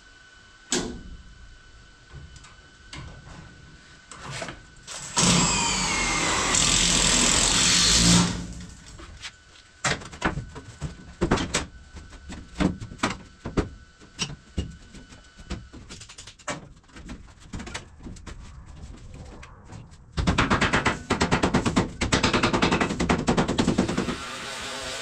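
Aluminium edge trim being fitted to a camper's seam: clicks, knocks and taps of metal on metal. Two loud bursts of a power drill driving screws, one about 5 s in and one about 20 s in.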